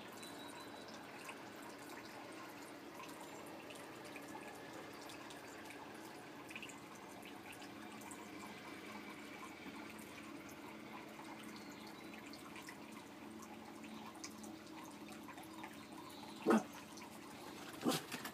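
Steady trickling and dripping of water from a backyard above-ground pool's circulation, over a faint low hum. Near the end a dog gives two loud, short barks as he jumps up at a gate.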